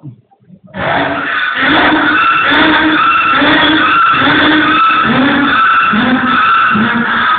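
A man's vocal sound-effect mimicry: from about a second in, a loud, unbroken run of pitched tones that swell and repeat roughly every two-thirds of a second.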